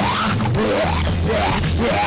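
Loud live music with a steady heavy bass and repeated high notes that slide up and bend, like wailing or screamed vocals over the band.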